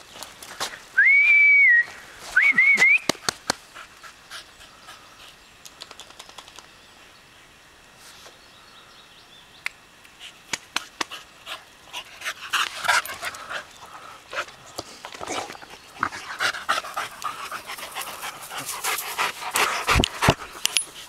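Two loud whistles about a second in, one held steady and one warbling, then from about halfway Rhodesian Ridgebacks panting close by, louder as a dog comes right up near the end.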